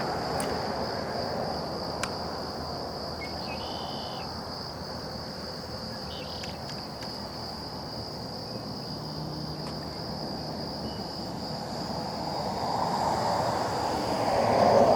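A steady, high-pitched insect chorus drones on one unchanging pitch over a wash of distant road traffic that swells again near the end. There is one sharp click about two seconds in.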